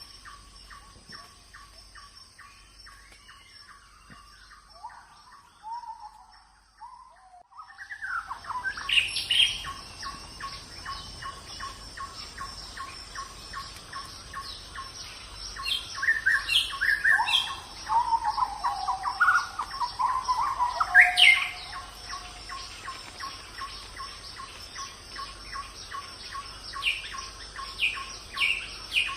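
Forest wildlife at night: a steady high insect whine, a short call repeating about three times a second, and birdlike gliding chirps that come in about eight seconds in and are loudest near the middle.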